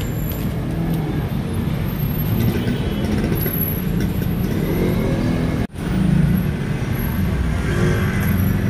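Steady low rumble of road traffic, broken by a momentary dropout a little past halfway.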